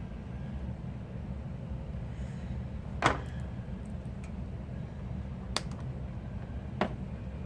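Three short sharp clicks over a steady low hum, the loudest about three seconds in: hands handling connectors and test leads as power is reconnected to a DC-DC converter and test bulb.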